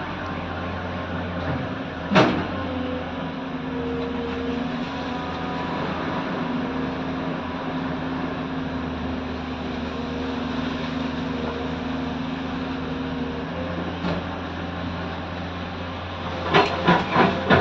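Excavator's diesel engine running steadily under varying load. There is a single sharp metallic clank about two seconds in and a quick series of four knocks near the end.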